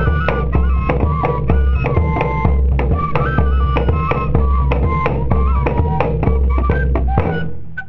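Pífano (fife) playing a quick, stepping melody over drums, in the northeastern Brazilian fife-and-drum style; the music fades out near the end.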